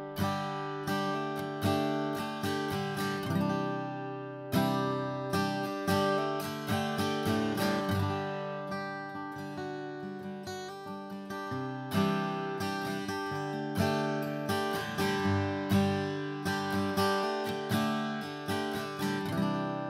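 Atkin Essential OM steel-string acoustic guitar played with a 2.2 mm Chicken Pick: a continuous run of picked and strummed chords, notes ringing over one another.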